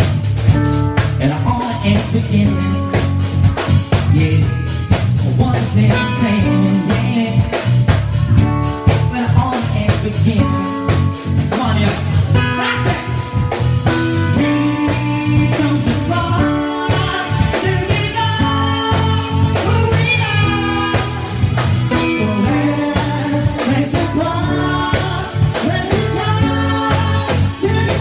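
Live band playing up-tempo dance music: a vocalist singing into a microphone over keyboards, a steady low bass and a drum kit keeping a fast, regular beat.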